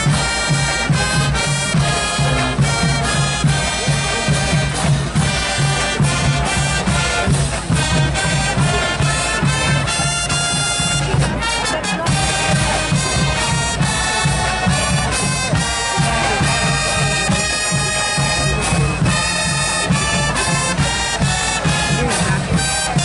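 Marching band playing on the field: brass instruments sounding over a steady bass drum beat.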